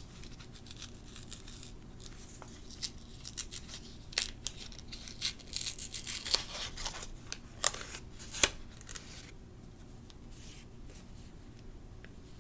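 Paper wrapping being carefully unfolded and peeled open by hand, rustling and crinkling in many short crackles, busiest in the middle, with one sharp click about two-thirds of the way through and quieter handling near the end.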